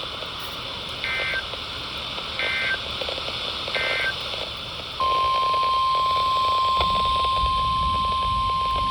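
Emergency Alert System digital data bursts: three short buzzy, warbling bursts of rapidly switching tones about a second and a half apart, the SAME end-of-message code closing the tornado warning. About five seconds in, the steady single-pitched 1050 Hz NOAA Weather Radio alert tone starts and holds, announcing the next warning.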